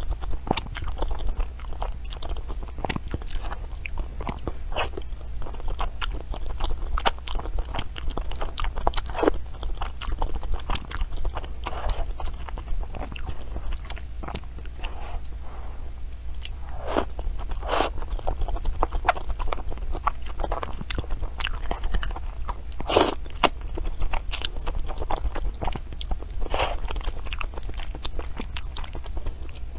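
Close-miked ASMR eating: irregular crisp crunches and bites of crunchy food being chewed, over a steady low hum.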